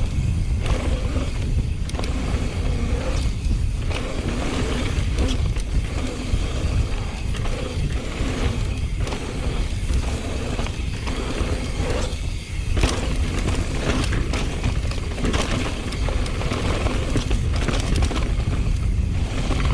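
Mountain bike descending a dirt jump trail: heavy wind rushing over the camera microphone, with tyre noise and the bike clattering over bumps. A short lull about twelve seconds in ends in a sharp knock.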